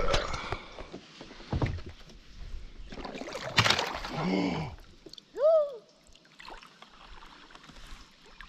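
Kayak paddle blades splashing and knocking through river water in several uneven strokes. About five seconds in there is a short, high squeal that rises and then falls.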